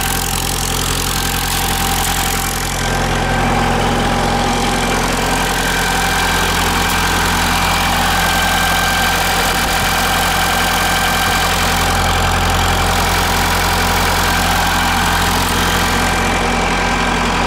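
Diesel engine of a Trackless MT5 municipal tractor running steadily, heard close up at the open engine compartment.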